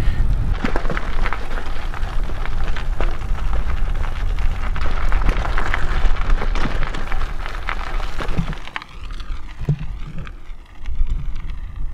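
Heavy wind buffeting on the microphone while cycling, with a dense crackle through it; about two-thirds through it drops to a lighter, steadier wind hiss.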